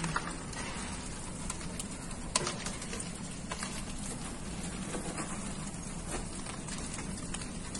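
Large building fire burning: a steady rushing noise with scattered crackles and pops, one sharper pop about two and a half seconds in.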